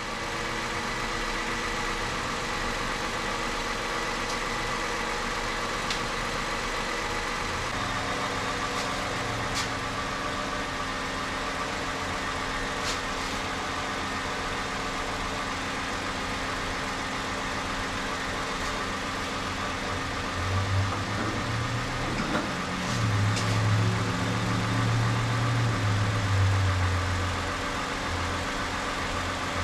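A car engine idling steadily. In the last third a deeper, louder drone comes in for about seven seconds, then drops away.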